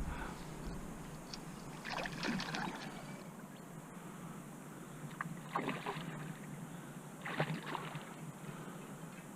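Water lapping and splashing softly around a small inflatable boat, with three short splashes about two, five and a half, and seven seconds in.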